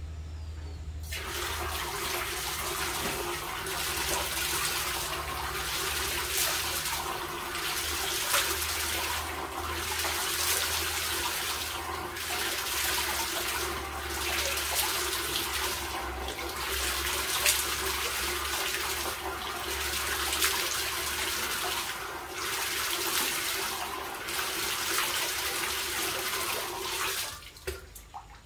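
Water running steadily into a plastic washbasin, starting about a second in and cutting off shortly before the end.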